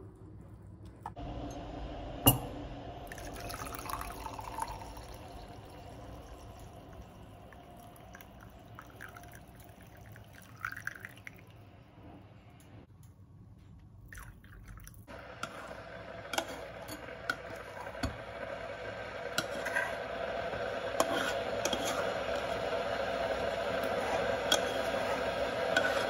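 Kitchen sounds of making oatmeal: a spoon scraping and stirring in a pot, with one sharp clink a couple of seconds in, and oat milk pouring from a carton into a coffee mug.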